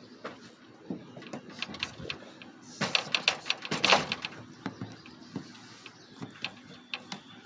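Irregular clicks and knocks of equipment being handled, with a quick flurry of them about three to four seconds in.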